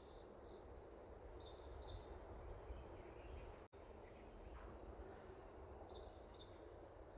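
Faint forest ambience: a steady hiss with a short high chirp repeating every two seconds or so. The sound drops out for an instant a little past halfway.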